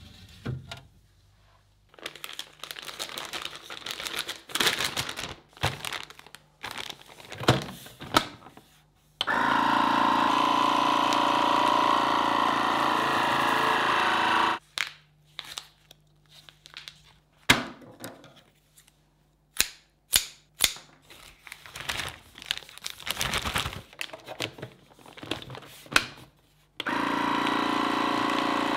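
Sencor vacuum sealer's pump running steadily for about five seconds as it draws the air out of a plastic bag of food, then starting again near the end. Before and between the runs, plastic bags crinkle and there are handling clicks and knocks.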